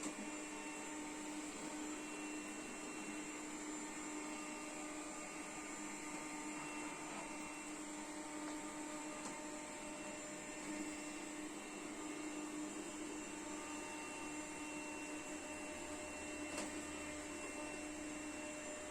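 Puppyoo R30 robot vacuum cleaner running, a steady motor hum with a high whine over a constant rush of suction.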